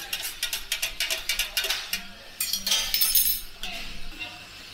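Metal spoon clinking and scraping in stainless-steel mugs as kopi and teh are mixed, in quick repeated clicks, then a louder ringing metal clatter about two and a half seconds in.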